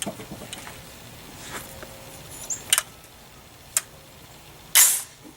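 AR-15 pistol firing its first test shot: a single sharp report near the end, preceded by a couple of faint clicks.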